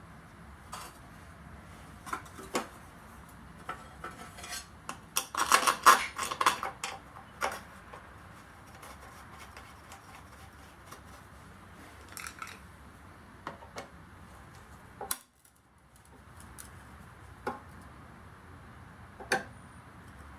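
Metal hand tools and small mower engine parts being handled: scattered clinks and clicks, with a burst of metallic rattling about five to seven seconds in.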